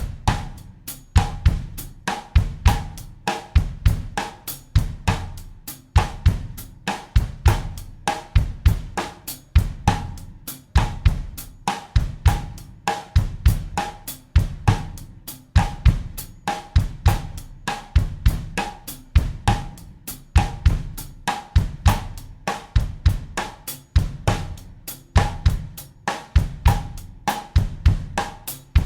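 Acoustic drum kit playing a bossa nova groove at 100 BPM in 4/4: steady cymbal or hi-hat eighth notes over a bass drum pattern, with a rim or snare figure sounding in a repeating two-bar pattern.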